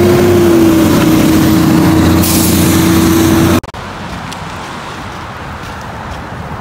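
A motor vehicle runs loud and close, with a steady motor whine over a low rumble. It cuts off abruptly a little over halfway through, leaving quieter street traffic noise.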